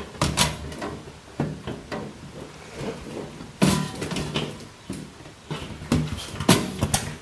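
Irregular light metal clicks and knocks from a power supply and computer case being handled, about eight in all, with the sharpest about halfway through and near the end.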